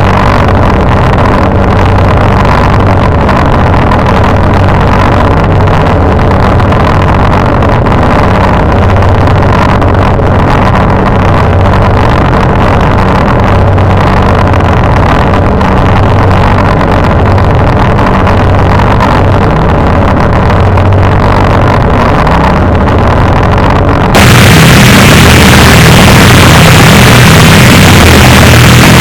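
Harsh noise / drone music: a loud, dense wall of distorted rumble with a steady low drone underneath. About 24 seconds in it cuts abruptly to a brighter, even louder wash of static-like hiss over the rumble.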